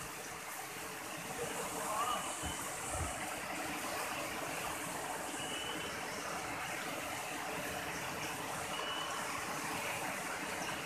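Shallow river water running over stones, a steady rushing hiss. Three brief faint high tones sound through it.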